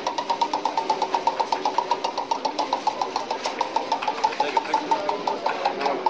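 Spinning roulette wheel, the ball clicking rapidly over the wheel's frets, the clicks gradually slowing; people's voices come in near the end.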